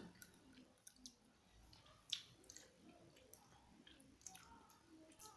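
Faint close-up chewing of soft, chewy rice cakes: scattered wet squishes and mouth clicks, with a sharper click about two seconds in.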